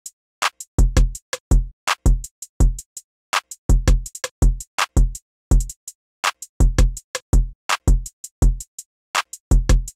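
Outro music: a programmed drum-machine beat of deep kick drums and sharp snare hits in a steady, repeating pattern.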